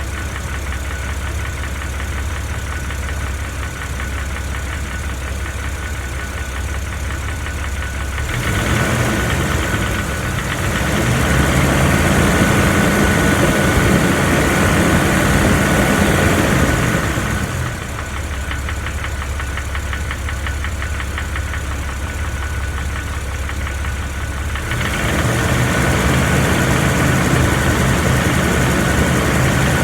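Jeep Wrangler TJ engine idling with a ticking, rattling noise, then revved up and held about 8 seconds in, dropping back to idle around 17 seconds, and revved again about 25 seconds in. The owner suspects the noise comes from the flexplate or bell housing area, and it seems to go away at higher RPM.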